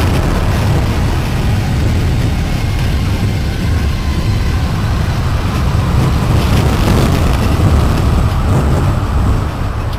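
Strong wind rushing with a heavy low rumble, the sound of a tornado, growing a little louder past the middle.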